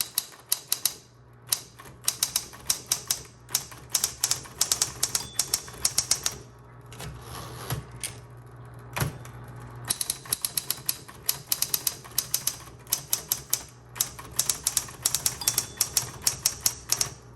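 Smith-Corona Electra 120 electric typewriter typing in quick bursts of keystrokes with short pauses between them, over the steady hum of its running motor. A pretty loud machine.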